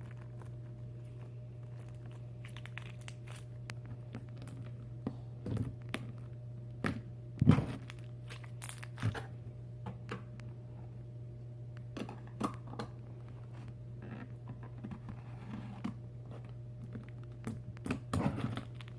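Hands squeezing and crunching slime mixed with stars, giving scattered crackles and crunches, the sharpest about seven and a half seconds in. A steady low hum runs underneath.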